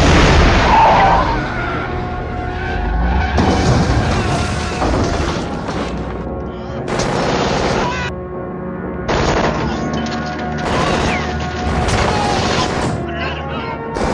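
A car crashing through glass doors, then repeated bursts of automatic rifle fire over a film's music score.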